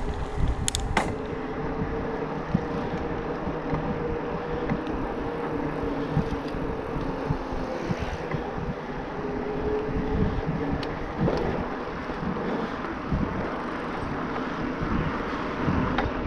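Riding noise of an e-mountain bike: wind on the microphone and tyre rumble, with a faint steady whine and a few sharp clicks about a second in. The Bosch Performance Line motor is hardly heard.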